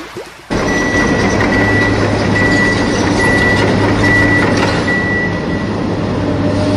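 Truck reversing sound: a steady engine rumble with a backup beeper beeping about once every 0.8 seconds. It starts suddenly about half a second in, and the beeping stops near the end while the rumble carries on.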